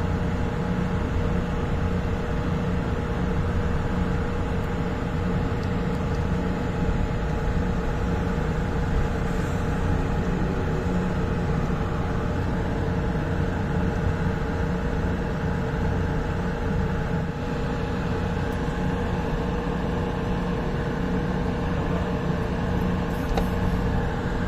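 Steady hum of a Mexico City Tren Ligero light rail car, with a few fixed tones from its electrical equipment over a low rumble.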